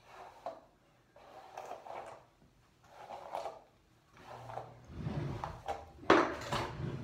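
Hairbrush strokes through hair, about one a second, each a short brushing rustle. The last two strokes are louder, with a sharp knock about six seconds in.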